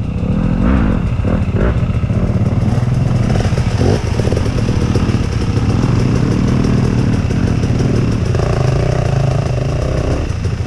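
Off-road motorcycle engine running at low speed on a trail, its pitch rising and falling several times as the throttle is worked.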